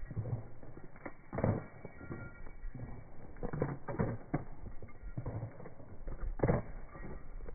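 Horses walking on a gravel road: irregular hoof crunches and knocks, with leather saddles creaking as they move.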